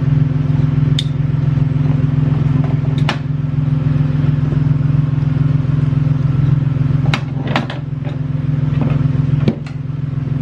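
Toyota Tacoma engine idling steadily, with a handful of sharp clicks over it. This engine has an intermittent ticking, light knocking noise, which the owner traced to a worn idler pulley.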